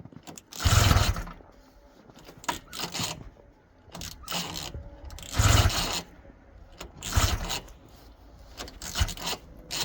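The recoil starter of a 1971 Ski-Doo Olympic's two-stroke engine is pulled hard twice, about a second in and about halfway through, turning the engine over without it catching. Smaller clanks and scrapes come between the pulls and near the end.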